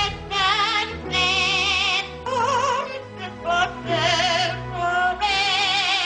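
An Amazon parrot singing in an operatic style, imitating a soprano: high held notes with strong vibrato, in about four phrases with short breaks between.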